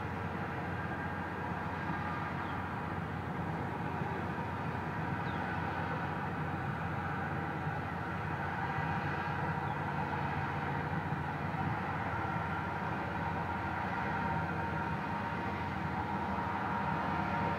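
Steady low hum mixed with a constant hiss, slowly getting a little louder, with no distinct events.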